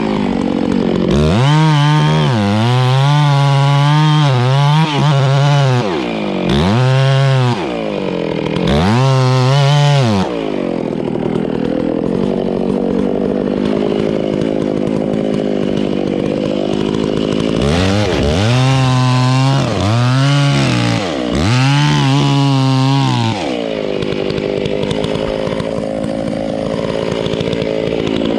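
Chainsaw revved up and down repeatedly, with stretches of steady high-speed running where it bites into the rotten trunk of a hollow tree being felled.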